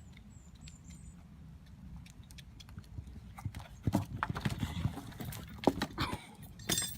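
A series of irregular knocks and clatters over a low steady rumble, growing louder and more frequent about halfway through.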